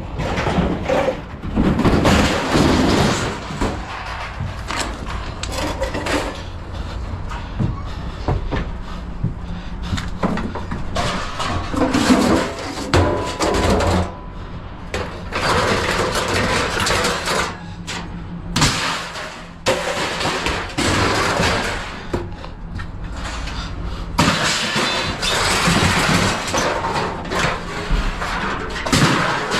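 A motor vehicle engine running steadily beneath irregular clattering and knocking, with louder noisy stretches that come and go.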